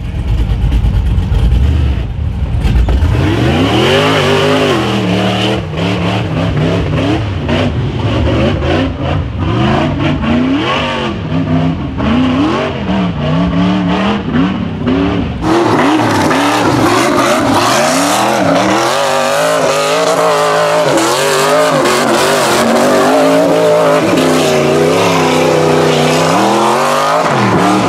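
A rock bouncer's LS V8 engine revving hard on a steep dirt hill climb, its pitch swinging up and down again and again as the throttle is worked. The sound turns harsher and brighter about halfway through.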